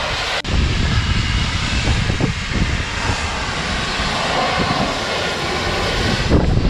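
Large farm machine, such as a John Deere tractor or combine harvester, running steadily under load, with a sharp break about half a second in.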